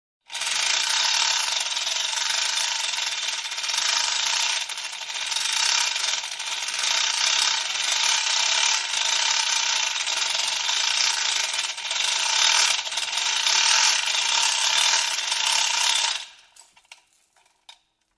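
Metal chain being pulled, its links rattling and clinking without a break for about sixteen seconds, then a few last clinks as it comes to rest.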